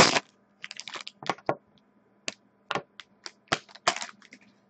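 Foil trading-card pack wrapper being torn open and crumpled: a loud crinkle at the start, then scattered sharp crackles and clicks as it is handled.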